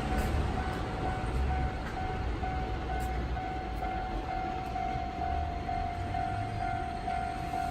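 Electronic warning bell of a Keisei railway level crossing, dinging in an even repeating rhythm, while a train passes with a low rumble and a few sharp clicks of wheels over rail joints. The rumble is heaviest in the first few seconds and then eases.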